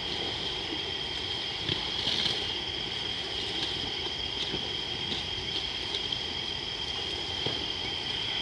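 Night insect chorus, a continuous high-pitched steady trill, over a low steady rushing background.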